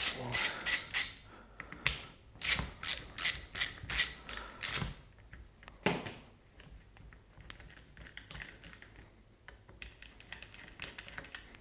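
Ratchet handle with a T30 Torx bit clicking in two runs, about three clicks a second, as the Torx bolts on an air suspension compressor are undone. The second half holds only faint handling noise.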